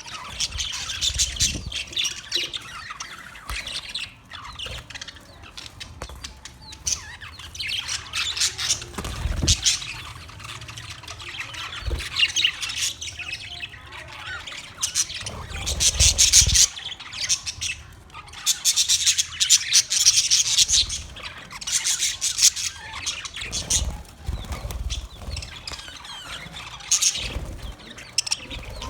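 Budgerigars chirping and chattering in rapid warbling bursts that come and go, with a few short low thumps.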